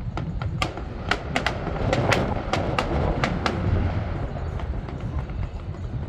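Fireworks going off: a rapid run of sharp cracks and pops, thickest in the first few seconds and thinning out after about three and a half seconds, over a steady low rumble.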